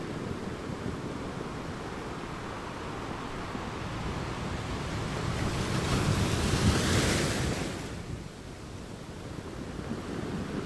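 A steady rushing noise that swells and brightens for about two seconds, roughly six seconds in, then settles back.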